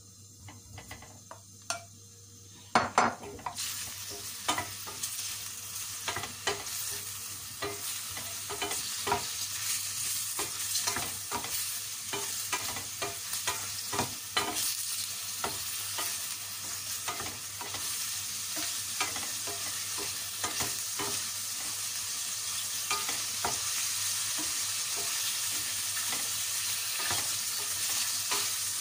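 Cubes of pre-boiled beef dropped into hot olive oil in a stainless steel pan, starting to sizzle about three seconds in. The frying hiss builds and then holds while a wooden spoon stirs the meat, with many short clacks of the spoon against the pan.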